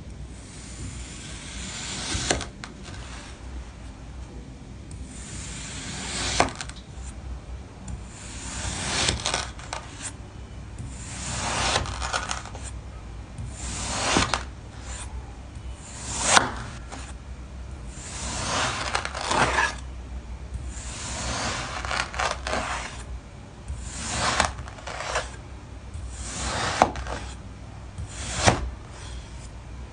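A blade slicing through kinetic sand again and again: each cut is a gritty, crunchy hiss that builds over a second or two and ends in a sharp tap as the blade meets the surface beneath, about one cut every two to three seconds.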